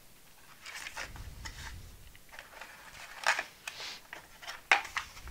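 A small cardboard box being opened and its packaged contents handled: rustling and scraping of packaging with a string of sharp clicks and taps, the loudest a little past the middle and about three-quarters of the way through.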